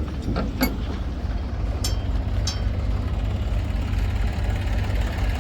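Heavy diesel engine running steadily at low revs, with a few light clicks or knocks in the first half.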